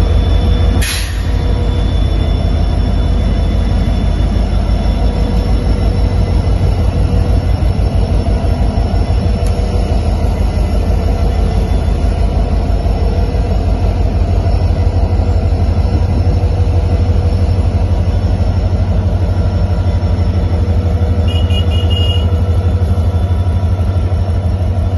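Indian Railways WDP-4D diesel locomotive's EMD 16-cylinder two-stroke engine running with a steady, loud low throb. A sharp click comes about a second in.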